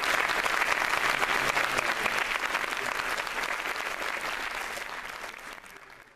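Audience applauding, a dense clatter of many hands clapping that fades out over the last couple of seconds.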